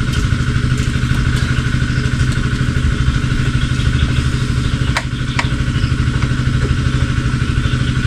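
Small motorcycle engine running steadily at an even speed, with two sharp clicks about five seconds in.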